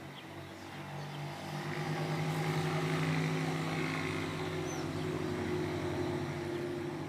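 A steady engine drone that grows louder over the first few seconds and then eases off a little, with a faint bird chirp or two above it.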